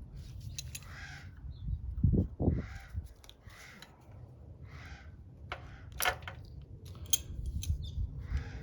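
Scattered sharp clicks and knocks from parts of a motorcycle's headlight case and speedometer being handled, with two dull thumps about two seconds in and a few short harsh noises between them.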